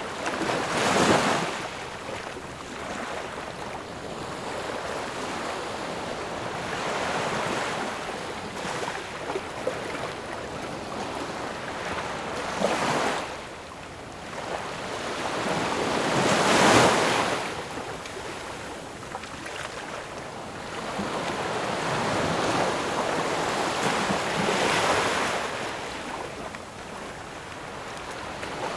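Ocean waves washing ashore: a constant hiss of surf that swells into a louder surge every four to six seconds and then falls away.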